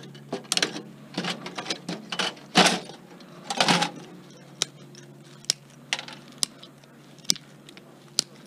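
Clicks and rattles of plastic and metal desktop-computer parts being handled and pried apart by hand, with two longer scraping rattles about two and a half and three and a half seconds in, over a low steady hum.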